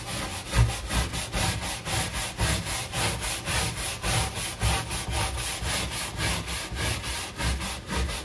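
Stiff-bristled scrub brush scrubbing back and forth on a non-skid boat deck, in rapid, regular strokes, working adhesive remover into old spray adhesive.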